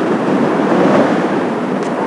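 Steady rushing roar of the Blue Impulse's Kawasaki T-4 jets in a display pass, mixed with strong gusty wind buffeting the microphone. It swells slightly about a second in.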